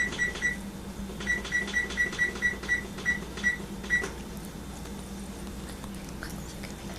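Electronic oven control panel beeping as its timer buttons are pressed to set 20 minutes. A quick run of short high beeps, a brief pause, then a longer run that stops about four seconds in.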